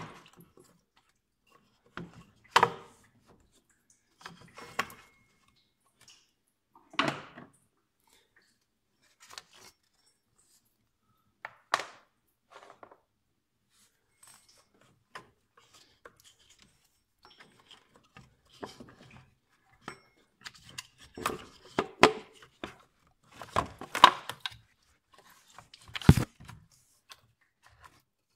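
Hand tools and metal parts knocking and clinking during work on a car engine: separate knocks every couple of seconds, then a busier run of clatter in the last third.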